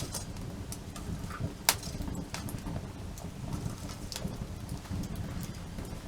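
Wood campfire crackling, with scattered sharp pops over a steady low rumble; the loudest pop comes about a second and a half in.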